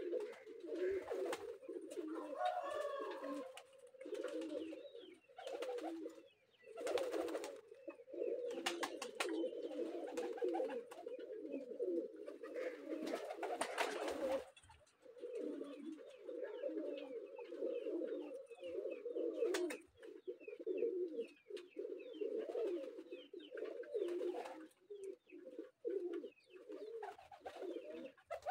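A flock of domestic pigeons cooing, many low coos overlapping almost without a break. Now and then there are short scratchy noises among them.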